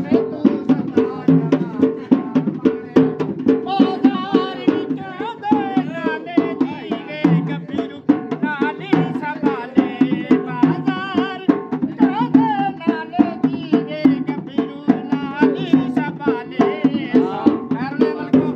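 Dhol, a double-headed barrel drum, beaten with sticks in a fast, even rhythm of sharp strokes, with a wavering melody line sung or played over it.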